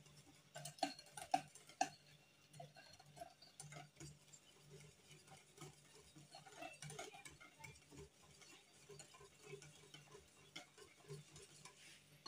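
Wire whisk clicking and scraping against a glass bowl as a thick dough batter is beaten, with irregular faint ticks and a few sharper taps about a second in.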